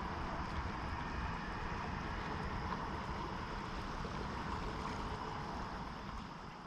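Steady outdoor rush of wind buffeting the microphone over flowing river water, fading out near the end.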